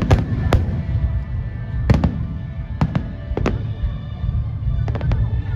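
Aerial fireworks bursting in a string of sharp bangs, some in quick pairs, over a continuous low rumble of further bursts, with music playing underneath.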